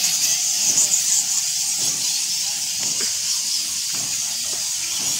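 Dense, steady high-pitched chatter of a huge roosting colony of Geoffroy's rousette fruit bats: countless squeaks and clicks blending into a hiss-like din.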